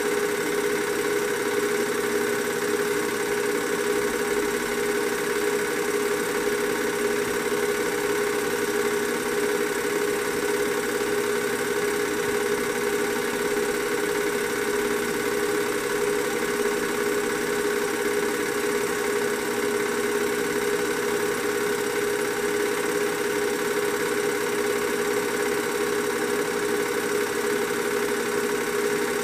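Steady mechanical whir of a running motor, with a constant whine that does not change.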